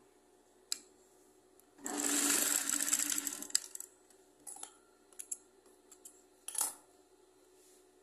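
Straight-stitch sewing machine running in one short burst of about two seconds, stitching the end of a viscose waistband strip. A few light clicks of fabric and machine handling follow.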